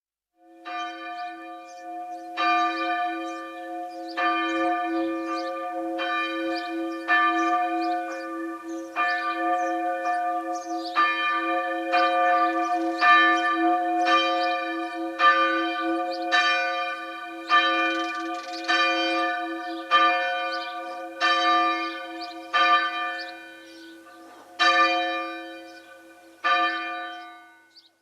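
Church bell ringing, struck about once a second over a steady lingering hum. The strokes space out toward the end, and the ringing fades away.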